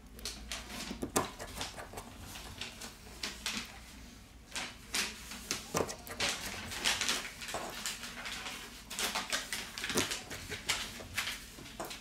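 Small hand tools and loose phone parts being handled on a workbench: irregular light clicks, taps and short scrapes, with a longer scratchy scraping stretch around the middle.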